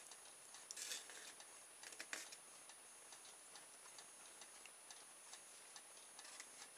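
Near silence: room tone with a few faint scattered clicks, most in the first couple of seconds, over a faint steady high whine.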